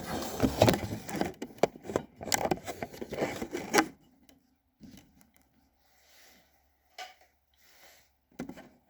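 Rapid clicking, rattling and rubbing handling noise for about four seconds, then mostly quiet with a few soft rustles and a single click.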